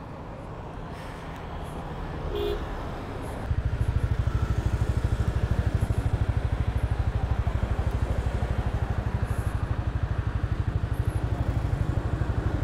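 A motorcycle engine cuts in suddenly about three and a half seconds in and then runs steadily at idle with a regular low throb, over quieter street noise.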